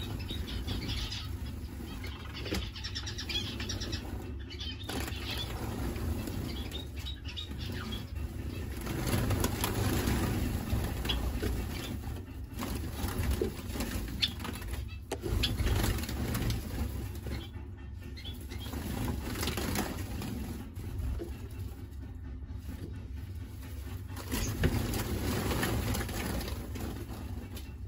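Small caged finches fluttering their wings as they fly between perches, with faint short chirps, over a steady low rumble.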